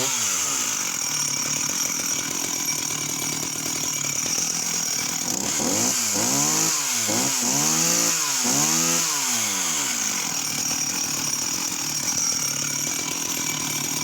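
Sachs Dolmar 111 52cc two-stroke chainsaw running: it drops back to a steady idle, then is revved up and let fall about four times in quick succession around the middle before settling back to idle.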